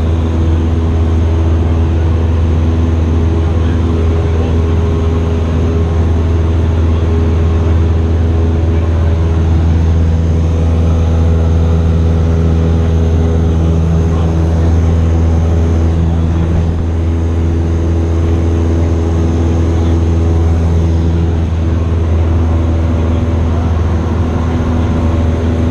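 Cessna 172's piston engine and propeller, heard from inside the cabin, droning steadily in flight with a deep, even hum.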